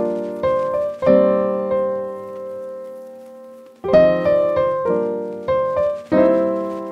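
Background piano music: chords struck about every half second, with one long held chord fading away in the middle.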